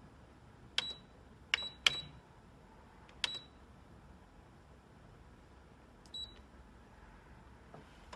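Canon imageRUNNER Advance C5035 copier's numeric keypad being pressed, each key giving a click and a short high beep of key confirmation: five presses at uneven intervals, the last fainter.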